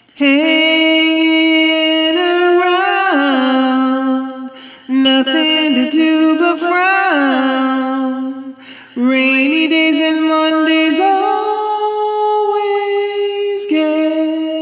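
A woman singing a cappella: long held notes with vibrato, with no clear words, in three phrases broken by short breaths about four and a half and eight and a half seconds in.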